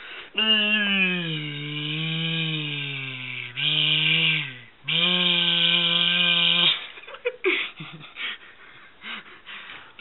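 A person imitating a helicopter with a buzzing voice, in long held notes that slide up and down in pitch, broken by short pauses. After about seven seconds it gives way to quieter scattered rustles and knocks.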